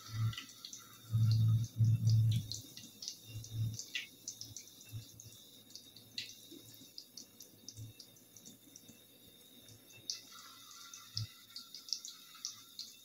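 Puff puff dough frying in hot oil: a light, scattered crackle and sizzle, with more batter squeezed in by hand. A couple of dull low thumps come a second or two in.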